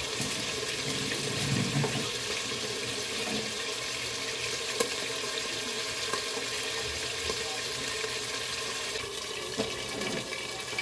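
Tuna pieces frying in hot oil in a lidded pan: a steady sizzle with scattered pops and crackles of spattering oil.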